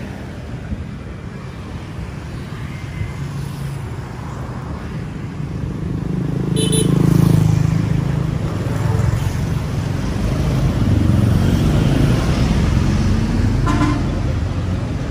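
Street traffic: engines of passing vehicles rumbling, loudest as one goes by about seven seconds in, with a short horn beep about six and a half seconds in and another near the end.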